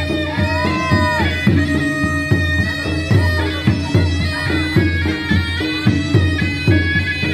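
Live patrol sahur ensemble music: a wind instrument holds a long steady note over a steady drum beat of about three strokes a second, with a few rising-and-falling pitch bends in the first second.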